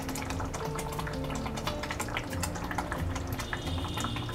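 Thick coconut-masala curry gravy simmering in a kadai, its bubbles bursting in many small irregular pops, over soft background music.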